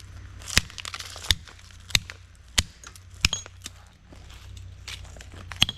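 Repeated hard blows striking an iPhone in an attempt to smash it: five sharp strikes about two-thirds of a second apart, a pause, then one more near the end.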